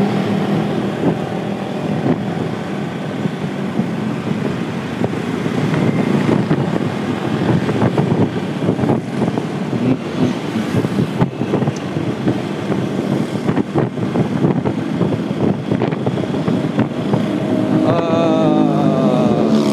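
Motorbike riding through traffic: the bike's engine running, with road and wind noise on the microphone and the sound of surrounding vehicles, unsteady in level.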